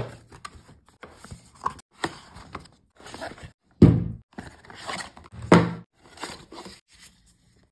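Cardboard packaging handled during unboxing: flaps scraping and rustling, with dull knocks as the contents are lifted out and set down on a wooden table. Two louder thumps come near the middle.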